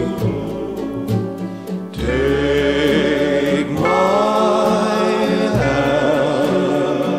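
Slow ballad with a singer holding long, wavering notes over sustained low accompaniment: background music.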